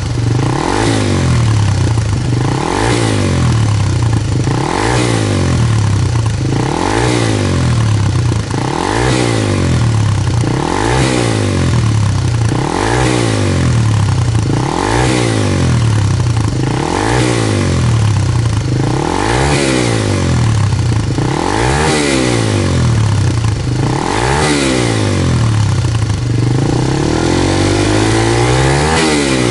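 Suzuki Gixxer SF250's single-cylinder engine through a BEAMS CORSA-EVO II stainless full exhaust, revved over and over about every two seconds. Each rev climbs quickly and falls back more slowly. Near the end comes one longer, slower rev.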